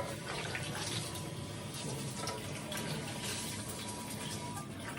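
Toilet tank refilling: water running steadily through the fill valve after the supply has been turned back on.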